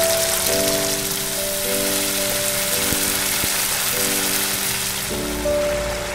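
Chicken curry sizzling in hot oil in a wok, a steady crackling hiss, with background music of sustained notes that change every second or so.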